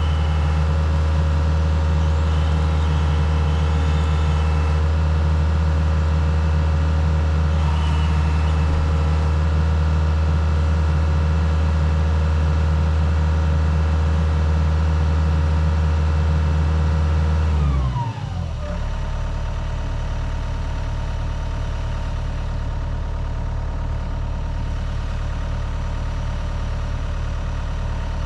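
Diesel engine of heavy equipment running steadily at high throttle, then throttled down about 18 seconds in, its pitch sliding down before it settles into a steady idle.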